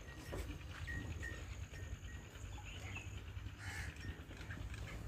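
Farmyard background: a steady low rumble with a few faint, short bird chirps.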